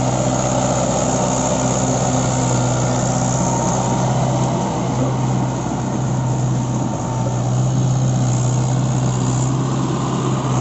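Mahindra 415 tractor's diesel engine running steadily while pulling a disc plough through a muddy field, with a constant low drone that eases slightly around the middle.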